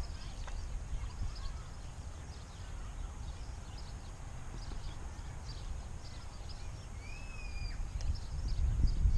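Wind buffeting an outdoor camera microphone as a steady low rumble, with faint bird chirps and one longer pitched bird call about seven seconds in.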